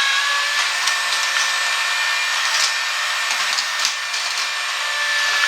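Motorized Hot Wheels track set running with a steady whir and a high whine, while die-cast toy cars click and rattle on the plastic track as several of them jam up.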